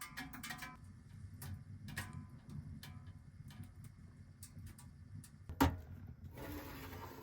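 Cooking over a fire: scattered light ticks and crackles over a steady low rumble. One sharp knock comes about five and a half seconds in, and a rustling hiss starts near the end.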